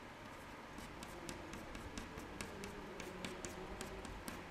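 Chalk tapping and scratching on a chalkboard in short, quick strokes: a run of faint clicks, about four or five a second, starting about a second in.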